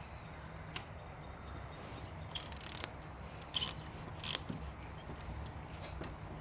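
Ratchet wrench clicking as it backs out a handlebar master cylinder clamp screw: a quick run of clicks a little over two seconds in, then two short bursts about a second apart.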